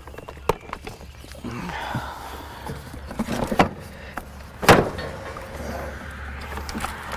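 Plastic knocks and clicks as wheels are being forced onto a Kärcher pressure washer by hand, with a few sharp knocks, the loudest about halfway through.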